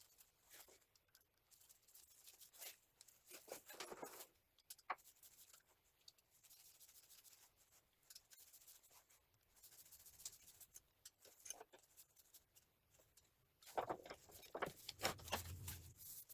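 Faint, scattered clicks, taps and rubbing of small parts being handled while a male plug is fitted to a new power cord, getting busier and louder near the end.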